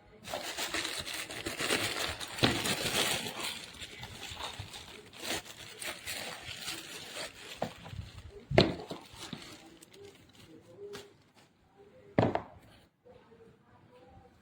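Crinkling, rustling handling noise for the first few seconds, then scattered clicks and two sharp knocks, the second a little after twelve seconds in.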